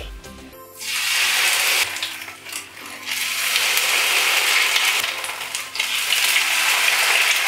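Grated-potato pancake batter (draniki) sizzling loudly in a frying pan. The sizzle starts about half a second in and dips briefly twice before swelling again.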